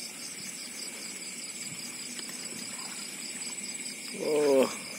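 Night chorus of crickets and other insects chirring steadily, in several high, pulsing bands. One high band stops a little before the end. Just after four seconds a short, loud vocal call cuts in.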